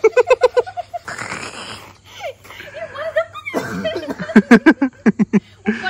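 People laughing in quick ha-ha bursts: one bout right at the start, a breathy rush of air about a second in, and a longer, louder bout of laughter in the second half.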